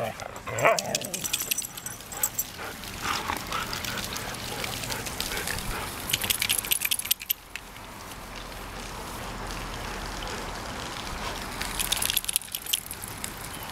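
Siberian huskies vocalizing as they play-fight, loudest in the first second and again a few seconds in. Later come scattered sharp clicks and rustling.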